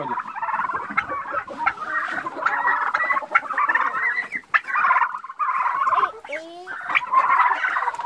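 A flock of young white broiler turkeys calling in a continuous chatter of high peeps and trills, with chicken clucks mixed in.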